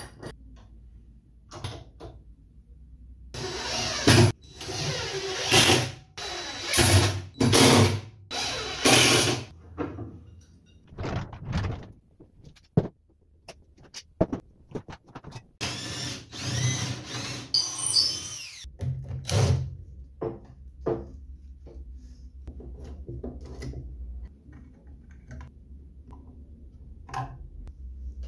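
A power drill-driver running in several short bursts, then a longer run near the middle, with clanks and knocks of clamps and wood being handled in between.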